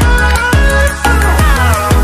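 Background electronic music with a heavy bass beat and repeated falling synth glides, about two a second.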